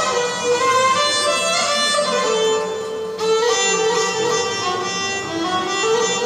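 Tunisian traditional ensemble music played live: a violin carries a gliding melody over oud, clarinet and riq (jingled frame drum), with a brief dip about halfway through.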